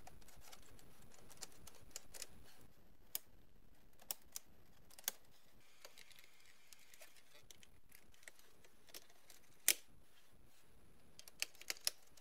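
Faint, scattered clicks and taps of plastic BMW E30 dashboard parts being handled and pressed into place. The loudest comes about three-quarters of the way through, followed by a quick run of smaller clicks near the end.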